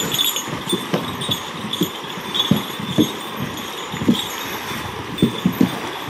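Footsteps on a wooden plank boardwalk: irregular dull thumps about every half second to a second, over a steady background hiss.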